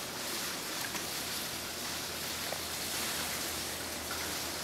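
Steady, even outdoor background hiss with no distinct calls standing out.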